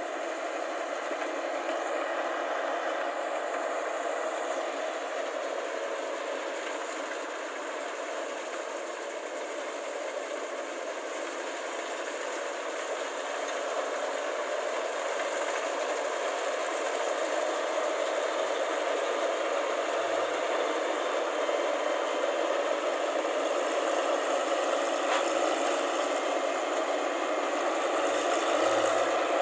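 Rice combine harvester's engine running with a steady mechanical rattle, growing slowly louder.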